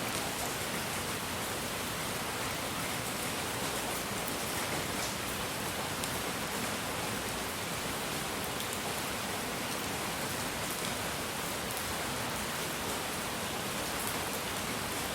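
Steady, even hiss of noise, strongest in the upper range, with faint crackles. It sounds like rain or a relaxation noise track.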